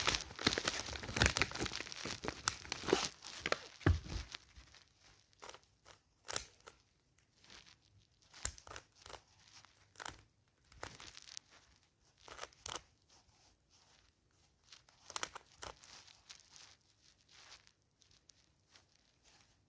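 Packaging of a puzzle cube being torn open and crinkled: dense tearing and rustling for about the first four seconds, then scattered short crackles and clicks as it is handled.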